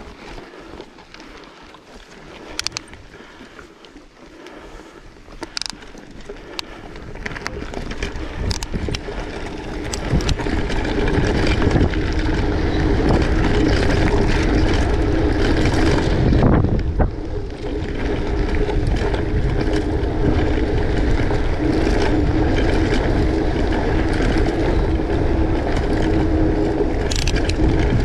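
Wind buffeting the microphone and rolling noise while riding along a track. Quiet at first with a few sharp clicks, it swells about eight to ten seconds in into a loud, steady rumble that lasts to the end.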